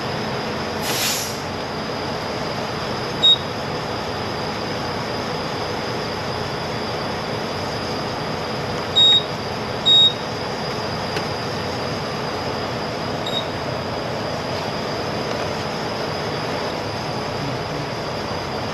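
Steady truck engine drone with a short hiss about a second in. Four short, high electronic beeps come through: one, then two a second apart, then one more.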